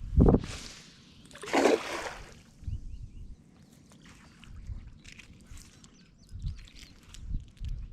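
Water splashing and sloshing at a kayak: a low bump just after the start, a louder splash between one and two seconds in, then scattered small knocks and drips.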